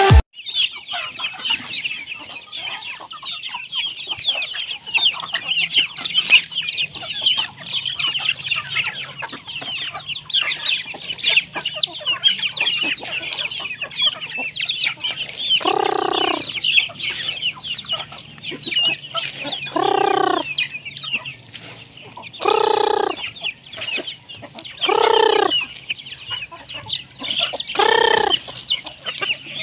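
Flock of free-range native chickens, with constant high peeping and chirping throughout. From about halfway through, five drawn-out calls of about a second each come every two to three seconds: roosters crowing.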